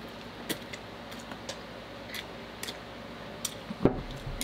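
Light, scattered clicks of chopsticks against a bowl while eating noodles, with a louder thump near the end.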